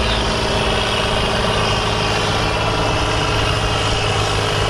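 Fendt Favorit tractor's diesel engine running steadily under heavy load as it drags a weight-transfer pulling sled down the track.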